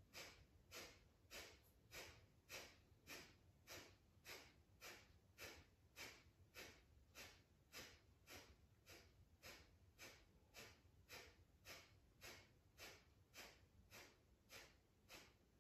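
Breath of fire (Kapalbhati): a steady run of short, sharp exhales pushed out through the nose by the belly, about two a second, faint.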